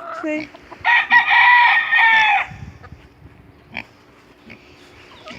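A rooster crowing once, a long call of about a second and a half, with softer chicken sounds around it.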